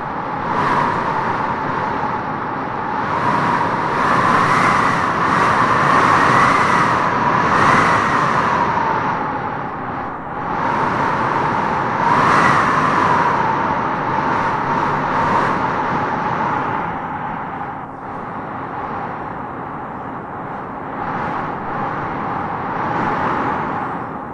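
Strong storm wind blowing in gusts, with a howling whistle that swells and rises in pitch several times. The gusts are strongest in the first half and ease off toward the end.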